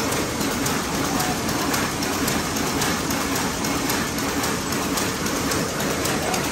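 Many jute weaving looms running together in a mill hall: a loud, steady, dense clatter of rapid mechanical ticks.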